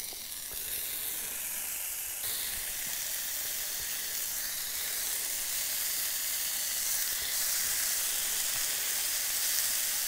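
Bacon-wrapped jalapeño poppers sizzling in a hot cast iron skillet, a steady frying hiss that gets gradually louder as more pieces go into the pan.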